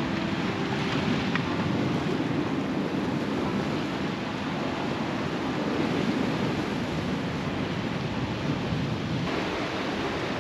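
Steady wash of sea surf breaking over a rocky shore, with wind buffeting the microphone.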